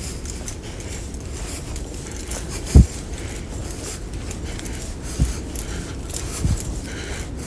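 Rustling and jangling handling noise from a handheld recorder carried by a walker, with three dull low thumps, the loudest about three seconds in.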